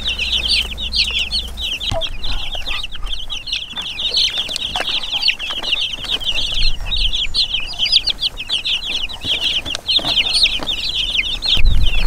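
A crowd of meat-bird chicks, a few days old, peeping nonstop: many short, high chirps overlapping. A low rumble joins them near the end.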